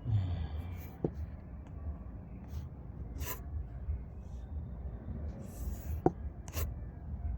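Fabric rustling and rubbing as cloth is handled and slid along, with a couple of sharp clicks and a steady low hum underneath.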